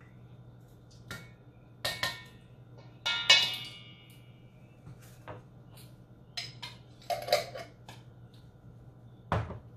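A kitchen utensil clinking and scraping against a jar and a stainless steel mixing bowl while mustard is scooped out, in a run of irregular clinks and knocks. The loudest, about three seconds in, rings briefly.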